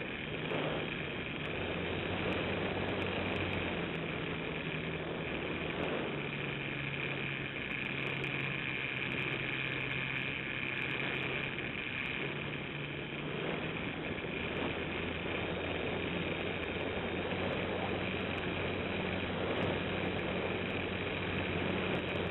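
Radio-controlled model airplane's motor and propeller running steadily, heard from a camera mounted on the plane itself, with air rushing past the microphone. The motor's pitch steps up and down a few times.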